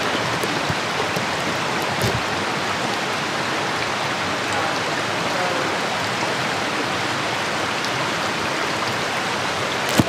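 Steady rushing of flowing water in a rocky ravine, even and unbroken, with a single short knock about two seconds in.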